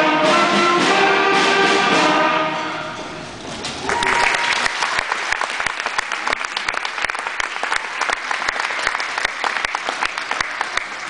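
A school brass band plays the last bars of a piece, which ends about three seconds in. From about four seconds the audience applauds steadily.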